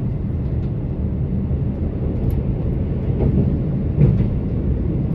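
Inside a KiHa 85 diesel railcar on the move: a steady low rumble of its Cummins diesel engine and wheels on the rails, with a few knocks from the running gear about three to four seconds in.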